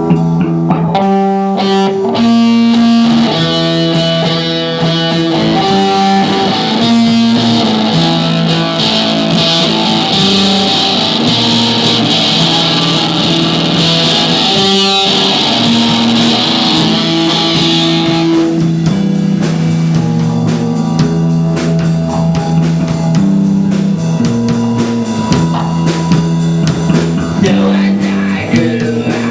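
A live rock band plays an instrumental passage led by guitar, with sustained notes throughout. A bright high wash runs through the first part and drops out about two-thirds of the way through.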